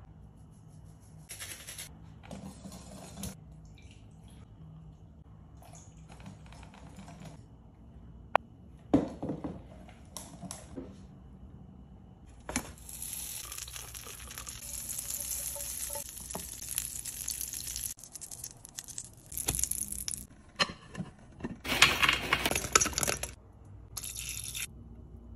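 Food-preparation sounds: a spoon and utensils clinking and scraping against a glass mixing bowl, and liquid being poured and stirred. There are scattered sharp clicks and noisy stretches, loudest near the end.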